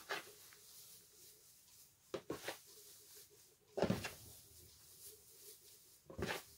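Hands mixing freshly water-sprayed shredded tobacco in a plastic tub: short rustling scoops through the cut leaf, about five in all. A louder dull knock about four seconds in, from the tub being handled.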